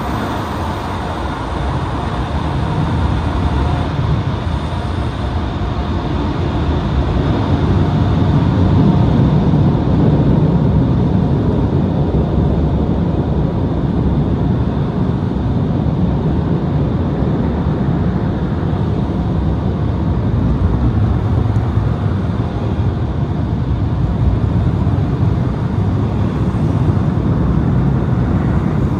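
Automatic tunnel car wash machinery heard from inside the car: a loud, steady rushing noise, heavy in the low end, that grows louder several seconds in and then holds.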